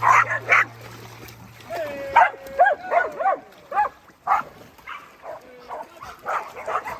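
Dogs barking in short, sharp single barks, with high wavering whines between them in the middle of the stretch.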